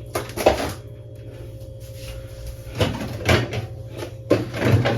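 Items being handled in a freezer: several short knocks and rattles of containers being moved, over a steady low hum.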